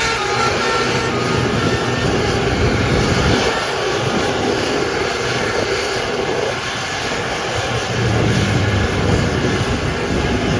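Large buses passing: a loud, steady engine and road drone.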